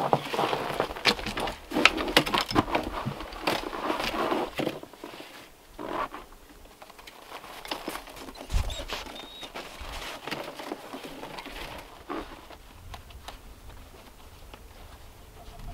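Footsteps and rustling in packed snow as a pair of wooden-framed, laced snowshoes is handled and put on. The sound is busy for the first few seconds, then drops to quieter, scattered small knocks and scuffs.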